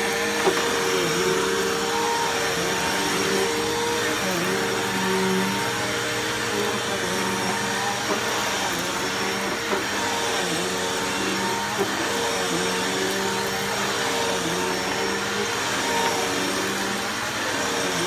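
Bissell Powerforce Bagless upright vacuum cleaner running steadily, its motor pitch dipping briefly every couple of seconds. A few sharp ticks sound through it.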